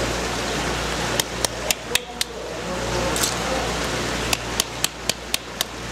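Small hammer tapping saruboo ark clam shells on concrete, cracking them lightly and roughly so the meat inside isn't crushed. The taps come in two quick runs of about four a second, with a single tap between them.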